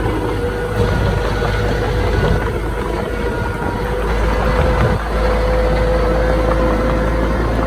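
Diesel engine of heavy earthmoving machinery running steadily with a low rumble and a steady whine; the rumble evens out about five seconds in.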